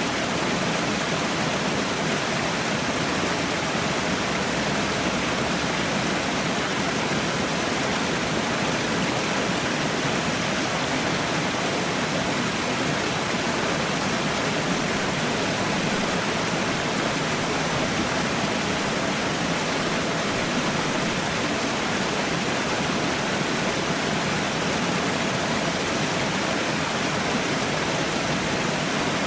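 Falling water: a steady, even rush that does not change.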